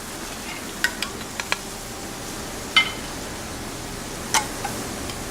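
Steady sizzle of food frying in a pan, with a handful of sharp clinks of kitchen utensils. One clink, about three seconds in, rings like metal.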